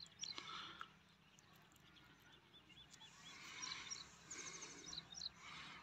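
Faint outdoor quiet with distant birds chirping in short repeated calls, and a few light crackles as a dry mustard pod is crushed open between the fingers.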